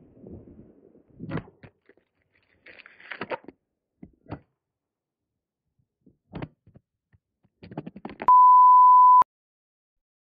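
A few faint knocks and rustles of a phone being fumbled and dropped, then, near the end, a loud steady single-pitched censor bleep lasting about a second.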